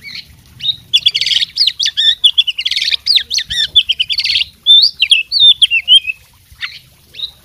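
Oriental magpie-robin (kacer) in full, loud song: a fast, varied run of harsh rasping bursts and sliding whistled notes, packed with phrases mimicked from other birds. It starts about a second in and thins to a few scattered notes after about six seconds.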